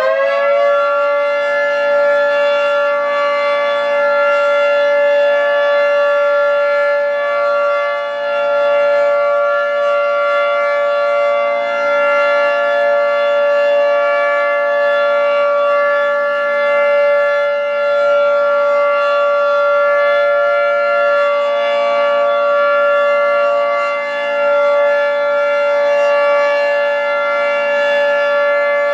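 Federal Signal 2T22 two-tone rotating outdoor warning siren sounding the steady full-alert signal. Its pitch levels off at full speed in the first second, then holds as a steady chord. Its loudness dips slightly now and then as the rotating head turns.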